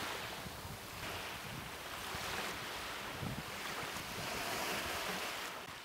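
A steady rushing noise, surging and ebbing every couple of seconds, beginning to fade out near the end.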